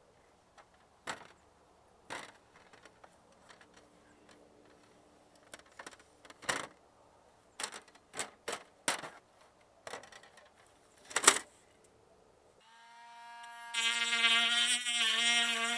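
Scattered knocks and clacks of boards and a thin strip being handled, about a dozen over ten seconds, the loudest a sharp clack near eleven seconds in. Near the end a steady buzzing hum starts and grows much louder.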